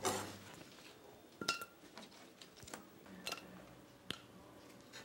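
A metal pan clinking and knocking as raw potato slices are handled in it: about five light knocks, two of them ringing briefly like struck metal.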